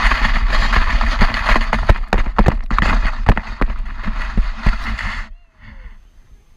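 Inflatable sled sliding fast down a snowy slope: a loud, steady rushing scrape of snow under the sled with many sharp knocks as it bumps along. The noise stops abruptly about five seconds in as the sled comes to rest.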